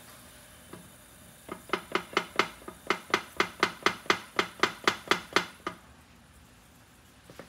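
A run of about eighteen quick, even taps on a pottery piece, roughly four a second for about four seconds, each with a short ring.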